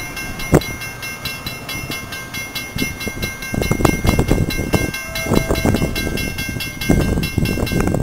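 Railroad grade-crossing warning bell ringing in rapid, evenly spaced strikes, over irregular low rumbling.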